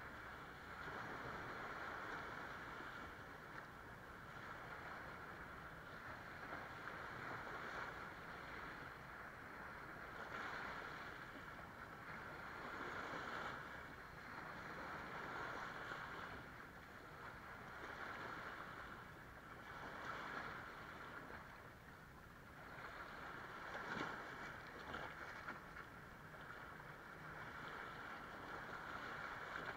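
Small waves washing in over sand and around shoreline rocks, surging and ebbing every two or three seconds, with one sharper splash about three-quarters of the way through.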